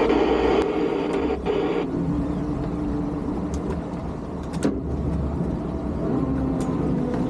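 Towboat engine running steadily at low speed while it maneuvers a yacht on a hip tow, with a rush of hiss during the first two seconds and a few light clicks.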